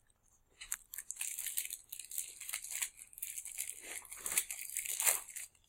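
Plastic wrapper of an individually packaged chocolate hazelnut wafer bar crinkling and tearing as it is pulled open, a continuous crackle of small clicks starting a little under a second in.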